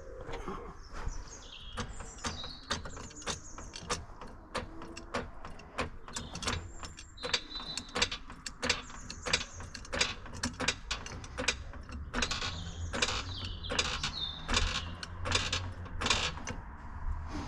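Car lifting gear being worked: a trolley jack and ratcheting jack stands giving repeated sharp metal clicks, about two to three a second, with short high squeaks between them.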